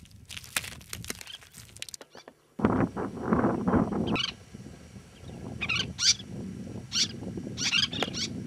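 Crunching footsteps on a dry salt-lake crust for about two seconds. Then wind buffets the microphone, and over it a pratincole gives short, sharp, high calls, about seven times in the second half.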